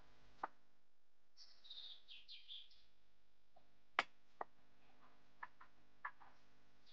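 Wooden spoon knocking and scraping against a glass baking dish as mashed potato is smoothed: a handful of sharp clicks, the loudest about four seconds in. A small bird chirps in quick high calls between about one and a half and three seconds in.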